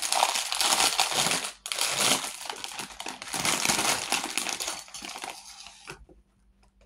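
Plastic packaging crinkling and rustling as it is handled, with a brief pause and then stopping about six seconds in.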